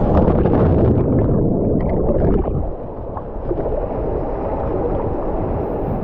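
Water rushing through a water slide tube as a rider slides down, loud until about two and a half seconds in. It then drops to steadier water sloshing and gurgling at the surface of the landing pool.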